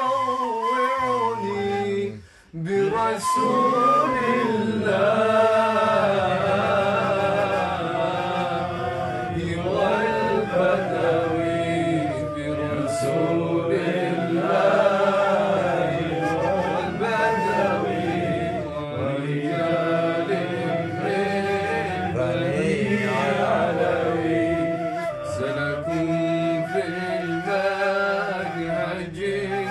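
Voices chanting an Arabic devotional song in long melodic lines, with a brief break about two seconds in.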